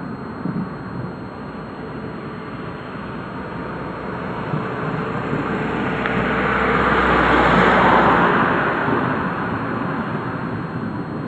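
A car passing by on the road: its rushing noise builds slowly, peaks about two-thirds of the way in, then fades away.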